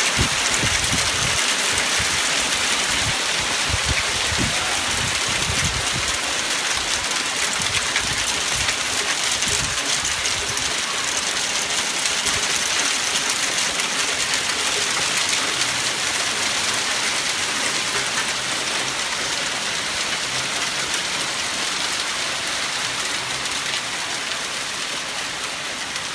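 Hail and rain pelting a wooden deck, patio furniture and gravel in a dense, steady hiss of countless small impacts. Irregular low thuds come through in the first several seconds, and the downpour eases slightly toward the end.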